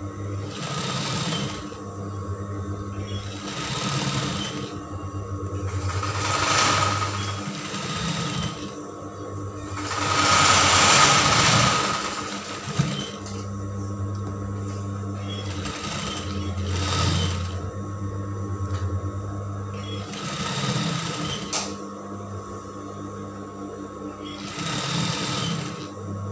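Sewing machine stitching a 1 cm drawstring channel in fabric, running in spurts that stop and start many times as the cloth is turned under the needle, with a sharp click about halfway through.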